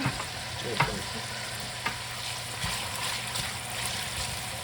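Chopped onions sizzling as they fry in oil in a pot, the start of a goulash base, with a few light knocks.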